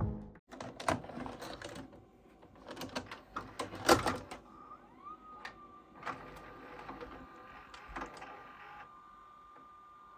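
Clicks and clunks of a VHS/DVD recorder's mechanism, busiest a few seconds in. About halfway through, a short rising whine settles into a faint steady high whine.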